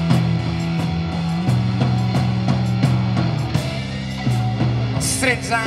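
Live rock band playing an instrumental passage: guitar and drum kit over long held low notes that change pitch every second or two.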